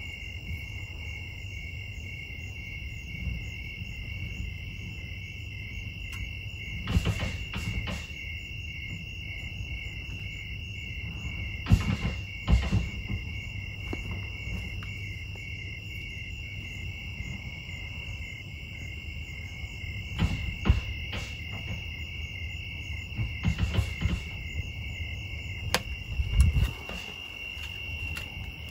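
Irregular bangs and thuds against thin metal skirting, in clusters a few seconds apart, from an animal trapped under the building that the owners suspect is an armadillo or a possum. A steady chorus of crickets chirps throughout.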